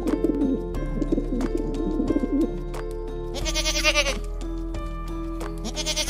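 Feral pigeons cooing over background music. A goat bleats, a wavering call about three and a half seconds in, and again at the end.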